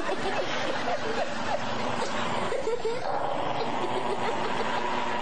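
People snickering and chuckling in short bursts, over a steady hiss with a faint constant tone.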